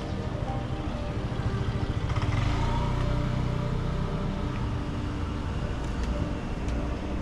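Motor scooter engine passing close by in a narrow alley, its rumble swelling to its loudest about two to three seconds in and then easing off.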